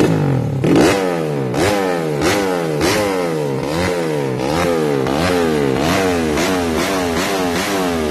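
Race-tuned Yamaha Jupiter Z grasstrack motorcycle's single-cylinder four-stroke engine revved in quick repeated throttle blips. Its pitch rises and falls about one and a half times a second, after one sharp rev about a second in.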